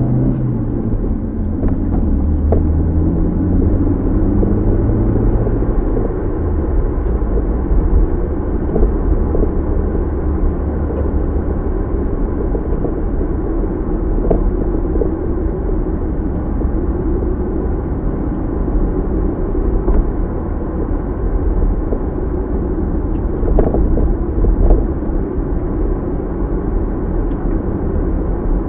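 A car driving, heard through a dashcam's microphone as steady engine and tyre rumble. In the first few seconds the engine note changes pitch in steps, then it settles into an even drone, with a few faint knocks along the way.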